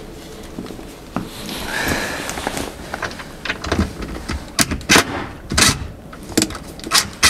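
Wooden cabinet door and its hinge being handled during adjustment: rustling at first, then from about halfway on a run of sharp, irregular clicks and knocks.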